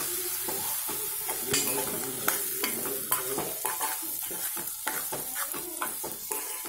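Ivy gourd and tomatoes sizzling in hot oil in a metal pot while a metal spoon stirs them, with repeated sharp scrapes and clinks of the spoon against the pot over a steady frying hiss.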